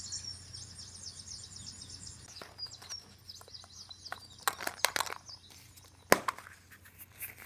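A bird chirping rapidly and high for about the first two seconds. Then a series of crinkles and sharp clicks from handling a wrapped toy surprise egg, with one loud click about six seconds in.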